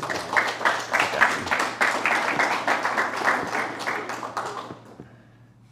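A small audience applauding, dense clapping that tails off and stops near the end.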